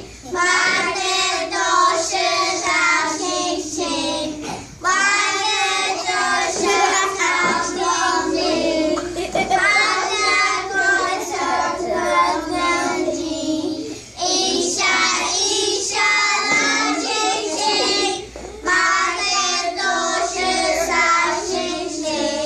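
A group of young boys singing a song together in unison, in phrases with brief pauses between them.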